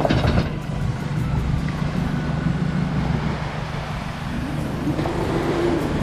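A motor engine running steadily with a low hum, with a short louder noise right at the start.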